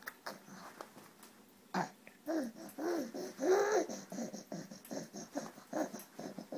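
Baby babbling: a run of short vocal sounds that rise and fall in pitch, loudest about three and a half seconds in.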